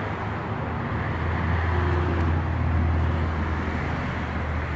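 Steady low rumble of vehicle or road-traffic noise, with an even hiss above it.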